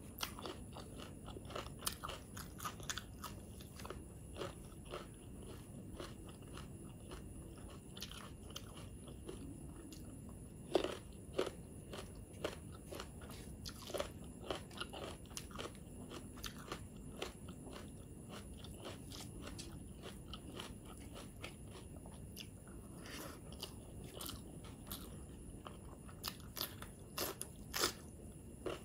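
Close-miked eating: a person chewing mouthfuls of rice and chicken gravy, with many irregular sharp crunches and wet mouth clicks. A few louder crunches come near the middle and near the end.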